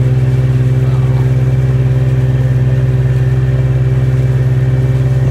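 Boat engine running steadily under load while towing a small barge, a loud, even low hum that holds one pitch throughout.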